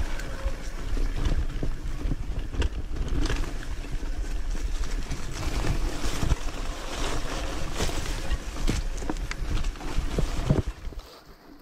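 Enduro motorcycle riding a rough off-road track: steady wind buffeting on the microphone over the bike, with frequent knocks and rattles from the bumps. The sound drops off sharply near the end.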